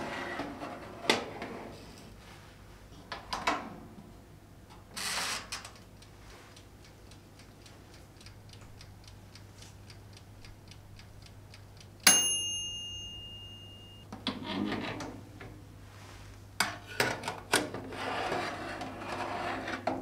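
Countertop electric oven in use: a baking tray slides onto the rack and the door knocks shut, a mechanical timer ticks quickly for a few seconds, then the timer bell strikes a single ringing ding about twelve seconds in. After it the door is opened and the metal tray scraped back out over the rack.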